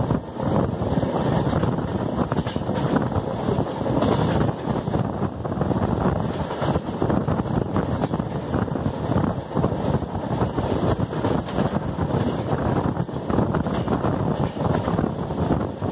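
Wind buffeting the microphone held out of a fast-moving passenger train, over the steady rumble of the LHB coaches running on the track.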